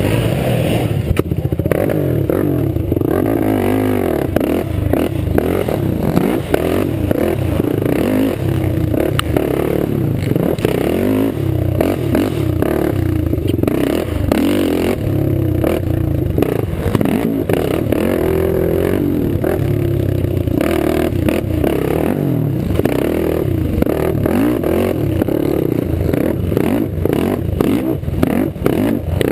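Racing quad's engine revving up and down continuously as it is ridden around a dirt track, the pitch rising and falling with the throttle.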